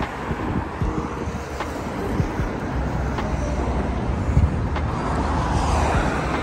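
Road traffic running along a busy multi-lane avenue: a steady hiss of tyres and engine rumble, swelling near the end as a car passes close.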